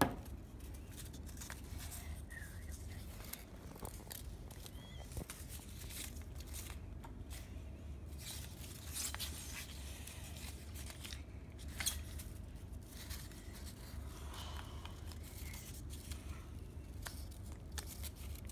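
Coloured paper strips rustling and crinkling as they are handled and rubbed with a glue stick, in scattered short rubs and clicks, over a steady low hum.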